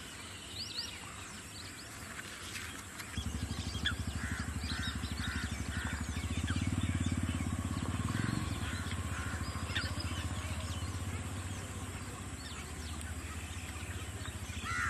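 Wild birds calling and chirping, including a short run of repeated notes, over the low steady hum of a small engine such as a motorcycle's. The engine comes in about three seconds in, is loudest around the middle, then eases.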